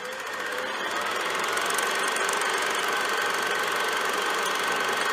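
Film projector running: a steady mechanical whir with a rapid, even clatter, fading up over the first second or so.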